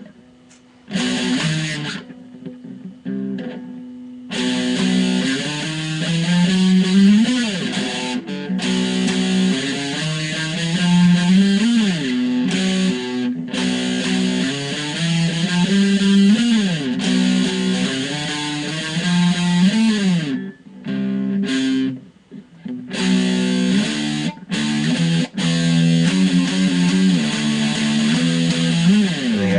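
Electric guitar playing a slow riff of held chords, with a string bent up and back down in pitch several times. It stops briefly a few times.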